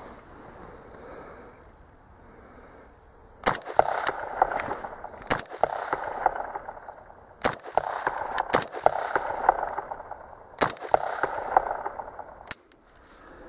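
Oberland Arms OA-15 semi-automatic AR-15-pattern rifle fired as single shots, about six of them, one to two seconds apart. They start about three and a half seconds in, and each is followed by an echo lasting about a second.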